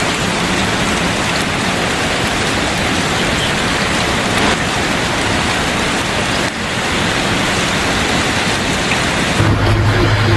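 Heavy rain pouring down: a steady, dense hiss. Near the end the rain gives way to the steady low hum of an idling vehicle engine.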